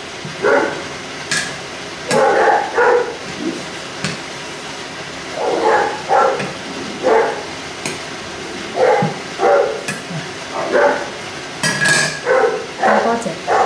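A dog barking repeatedly, in short barks grouped in twos and threes, with a few sharp knocks of a cleaver on the worktop, the loudest near the end.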